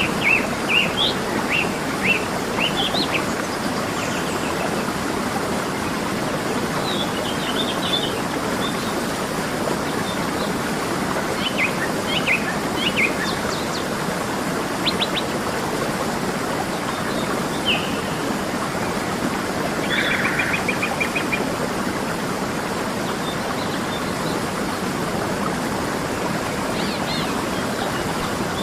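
Steady rushing of a waterfall, with songbirds chirping over it in scattered short calls and a quick trill about two thirds of the way through.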